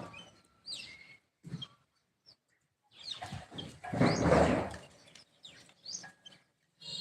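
Birds chirping in short, separate high calls that slide in pitch. A louder burst of rustling noise about three to five seconds in.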